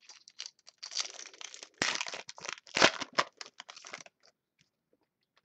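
A trading-card pack wrapper being torn open and crinkled: a run of rustles and rips for about four seconds, loudest in the middle, then stopping.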